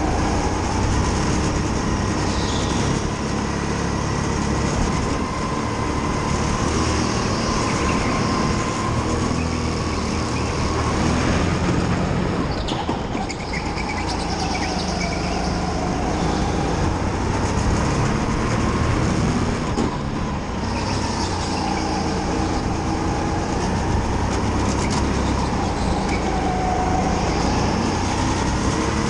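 Go-kart engine running hard around an indoor track, its note rising on the straights and dropping for the corners, over steady road and wind noise.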